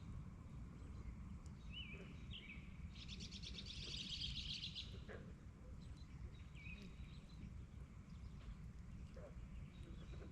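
Songbirds calling at dusk: a few short whistled chirps and, about three seconds in, a rapid trill lasting nearly two seconds, over a faint, steady low rumble.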